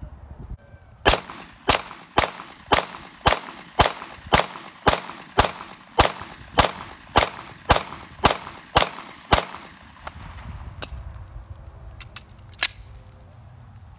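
Semi-automatic pistol fired about sixteen times in a steady string, roughly two shots a second, then the firing stops. A few light clicks follow, and a single quieter shot comes about three seconds later.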